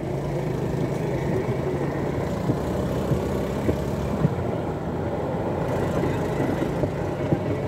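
Engine of a rail motor trolley (motorodillo) running steadily, with a few sharp clicks over it.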